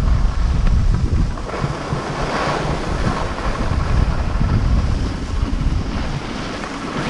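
Wind buffeting an action camera's microphone: a heavy low rumble, loudest for the first second or so, over a steady rushing hiss.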